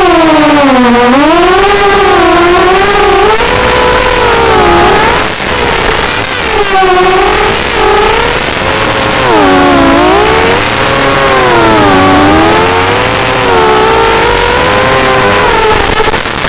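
FPV quadcopter's electric motors and propellers whining loudly in flight, the pitch swinging up and down every second or two as the throttle is worked.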